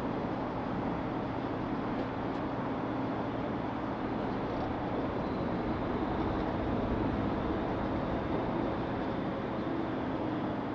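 NYC Ferry under way: its engines run with a steady low drone under an even rushing noise.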